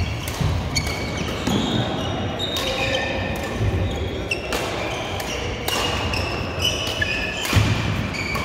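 Badminton rackets striking the shuttlecock with sharp cracks every second or two. Court shoes squeak briefly on the court mats between hits, with the reverberation of a large sports hall.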